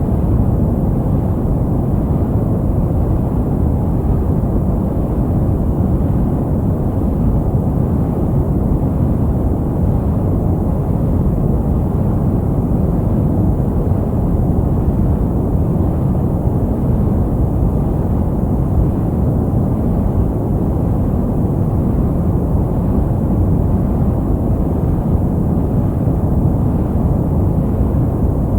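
Steady, deep sleep-aid noise from a white-noise track, a low rushing rumble with little treble and no changes.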